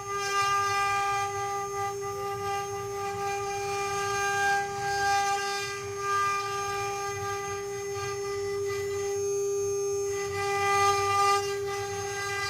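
CNC wood carving router's spindle running with a steady, unchanging high whine, with some rougher machine noise beneath it.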